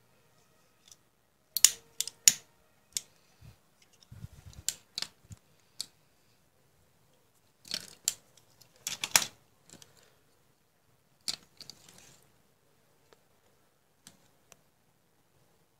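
Handling noise from a small W1209 thermostat circuit board and its wires: irregular sharp clicks and brief rustles as it is moved about and its push buttons are pressed, loudest about two seconds in and again about nine seconds in.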